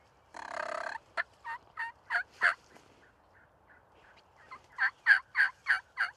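Turkey yelping: a short rattling burst about half a second in, then a run of sharp yelps that grow louder, and near the end a louder, faster string of yelps at about four a second.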